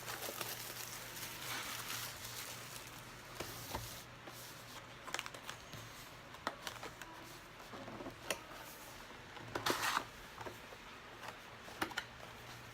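Hands handling a trading-card hobby box and its foil packs: scattered clicks and rustles, with a louder crinkle about ten seconds in, over a low steady hum.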